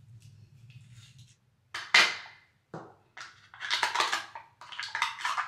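Plastic jar of hair styling wax being handled and opened: a sharp crack about two seconds in, a smaller click, then a scratchy rustling as the packaging and lid are worked.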